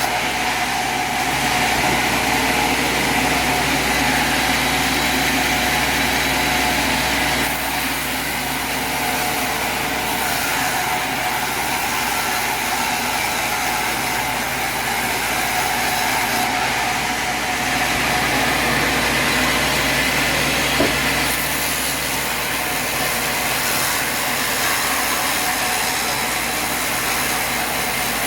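Portable sawmill's engine running steadily at an even speed.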